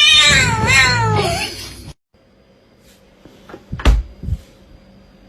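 A cat's loud, drawn-out meow that wavers and falls in pitch, then cuts off abruptly about two seconds in. It is followed by a few knocks, the loudest just before four seconds.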